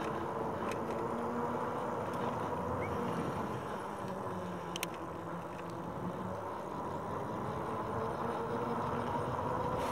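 Rad Power RadRover 5 e-bike under way: steady tyre and riding noise with a faint even hum from the hub motor. A single short click about five seconds in.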